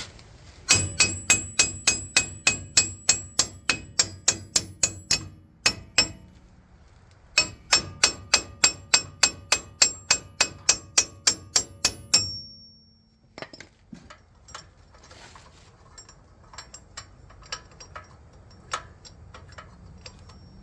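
A hammer knocking an old wheel stud out of a truck's rear wheel hub: two fast runs of about twenty ringing steel-on-steel blows each, around four a second, with a single blow between them. Lighter metal clinks and taps follow.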